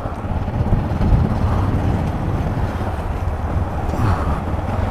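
Trail motorcycle's engine running steadily as the bike is ridden, with wind noise on the microphone.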